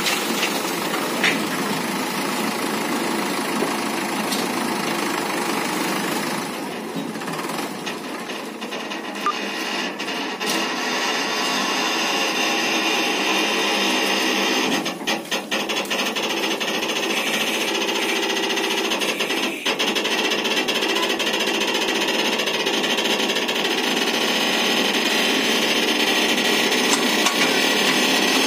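Mahindra 585 DI tractor's four-cylinder diesel engine running steadily while it works the hydraulic tipper of its trolley, the raised bed coming back down.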